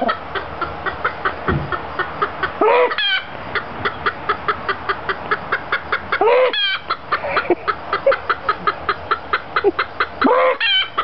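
A rapid, steady run of short clucking sounds, about six a second, with a Serama rooster's short crow breaking in three times: about 3 seconds in, about 6.5 seconds in, and near the end.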